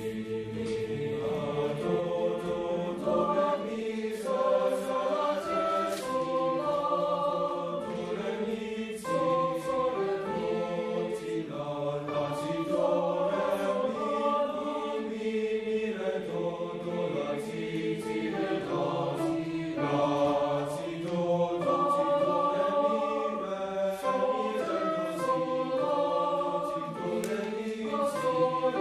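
A boys' choir singing without a break, several voices on different pitches at once, with the sung consonants audible as short hisses.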